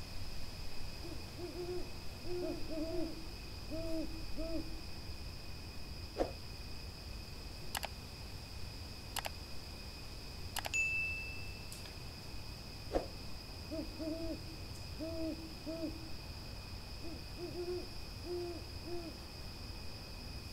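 Owl hooting: two bouts of short, soft hoots in quick series with a pause of several seconds between them. In the pause come a few sharp clicks and a brief ding, and a steady high-pitched tone runs underneath.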